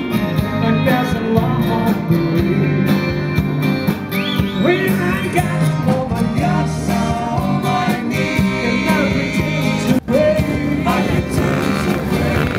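Live country band playing through a PA: strummed acoustic and electric guitars, drums and fiddle, with a singer. A brief dropout comes about ten seconds in.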